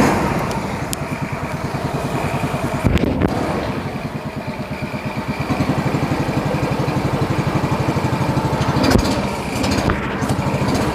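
Small engine running at a steady idle with an even firing beat, picking up slightly about halfway through, with a couple of short knocks.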